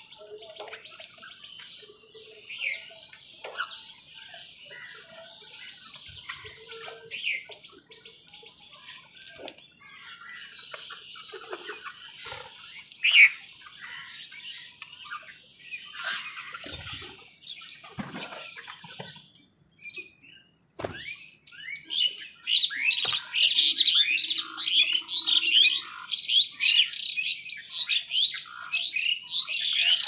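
A flock of birds chirping and squawking, with a few soft thuds around the middle. About two-thirds of the way through the chirping swells into a loud, dense run of rapid chirps.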